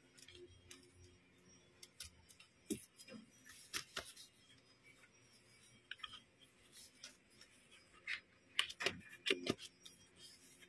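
Hands handling a black box that holds a photobook: scattered light clicks, taps and brief scrapes of fingers and board as the book is worked out, with a cluster of louder knocks and scrapes about eight to nine and a half seconds in.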